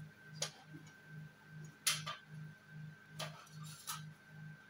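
A few sharp clicks and taps as satin fabric is handled at a manual sewing machine, over a faint, even ticking pulse of about two beats a second.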